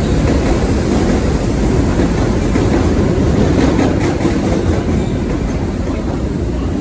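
Electric commuter trains, including a Chinese-built CNR unit, passing close by a station platform at speed: a loud, steady rumble of steel wheels on rails, with a few rail-joint clicks about halfway through.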